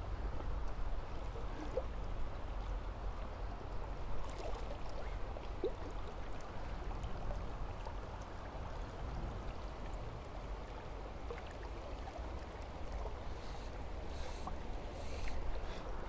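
Shallow river water running steadily over a stony bed.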